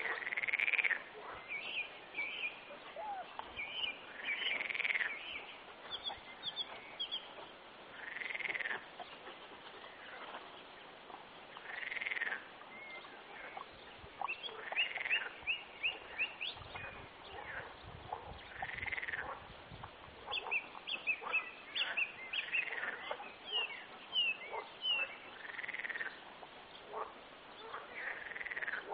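Frogs calling in a pond, a drawn-out call rising and falling in pitch about every three to four seconds, with many short high chirps in between.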